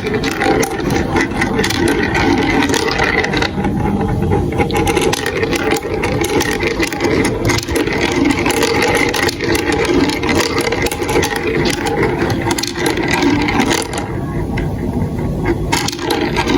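Many marbles rolling and clattering through a plastic building-block marble run, a dense continuous rattle of small clicks.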